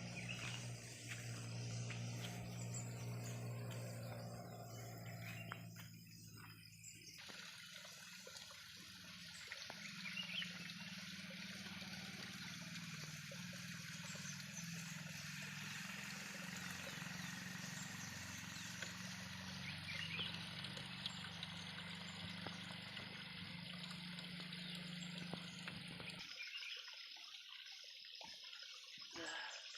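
Water trickling and running amid outdoor ambience, with the sound changing abruptly twice, about a quarter of the way in and near the end.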